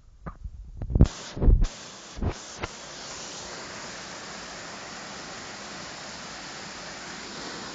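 A few loud knocks and bumps over about two seconds, then the steady rushing of a creek waterfall.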